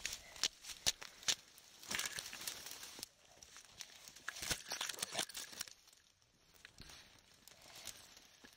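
Dry grass and brush rustling, with many sharp crackles of twigs and stems breaking, as someone pushes through undergrowth. The snapping is densest in the first three seconds, then thins out.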